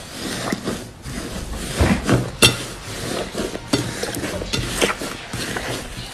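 Slime being squeezed and kneaded by hand, giving a steady run of irregular sticky clicks and pops, with the sharpest pop about two and a half seconds in.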